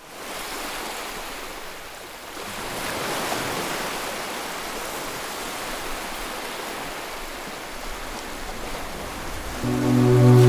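Ocean surf, a steady rush of waves breaking and washing in. Near the end, music comes in with sustained low notes.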